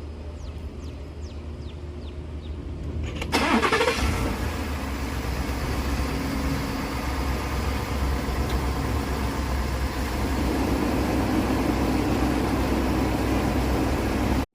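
Ford pickup truck's engine cranking and catching about three seconds in, then running steadily at idle.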